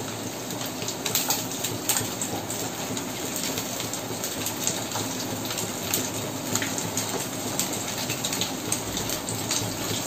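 Pieces of milk cake sizzling steadily in hot oil in a frying pan, with frequent sharp crackles and spatters and a few clicks of a wooden spatula against the pan.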